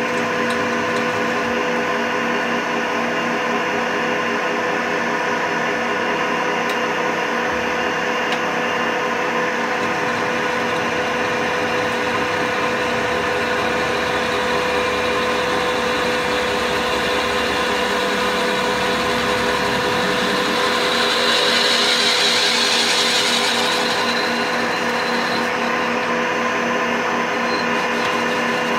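Metal lathe running steadily with its motor and gears whining, a drill bit held in the spinning chuck boring into a metal bar. About twenty seconds in the cutting grows louder and hissier for a few seconds, then settles back to the steady running sound.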